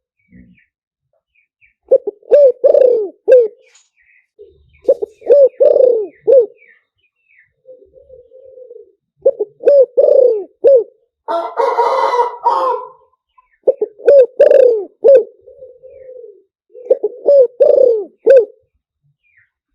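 Spotted dove cooing: five phrases of several quick coos each, with softer drawn-out coos between them. This is the call played as a lure in dove trapping. A brief harsher, noisier sound comes in around the middle.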